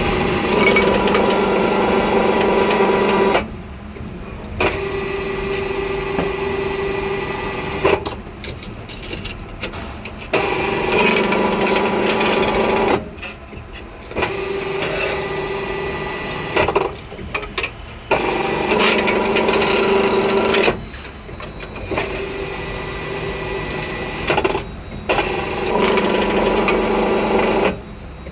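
Electric rebar bending machine forming steel bars into stirrup rings, its motor humming in repeated spells of a few seconds with short pauses between bends.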